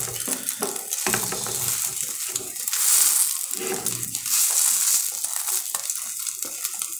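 Egg-coated bread sandwich frying in hot oil in a metal frying pan on high heat, sizzling steadily, with the spatula now and then scraping and pressing against the pan.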